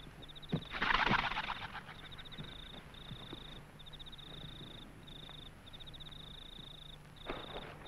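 Night ambience of insects chirping in short, evenly repeated high trills, over a low steady hum. A few soft footsteps sound, and a louder rustle comes about a second in, with a shorter one near the end.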